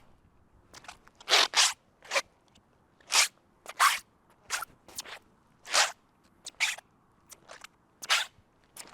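Footsteps in wet shoes, each step a squelch of the waterlogged sole. About one or two steps a second at an uneven pace, some much louder than others and several coming as quick double squelches.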